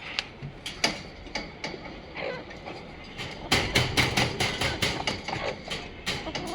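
A quick, irregular run of sharp clicks and knocks, a few at first and then a dense flurry over the second half.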